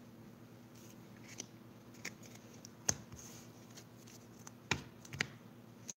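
Trading cards being handled and set down on a playmat: half a dozen brief, soft clicks and taps, the sharpest about three seconds in and near the end, over a faint low hum.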